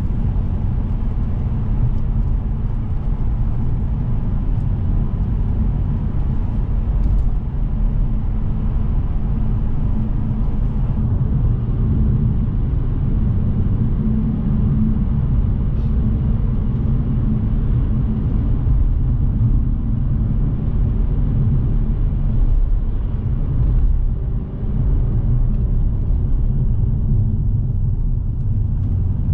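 2006 BMW 630i's straight-six engine and tyre road noise heard inside the cabin while driving at steady speed: a continuous low rumble that dips briefly near the end.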